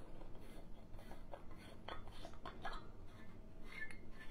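Faint, irregular clicks and scrapes of a glass Edison bulb's screw base being twisted into a pendant-light socket.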